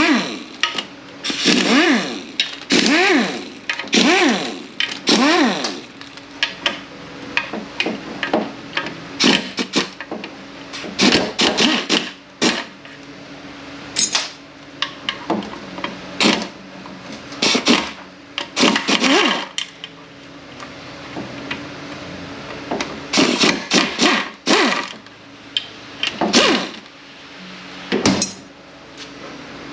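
Metal tool work on the 10 mm bolts of an automatic transmission's metal oil pan. A power tool runs in short bursts that rise and fall in pitch, about one a second, several times at the start and again near the end. Between the bursts come sharp metallic clinks and knocks of a socket, the bolts and other tools.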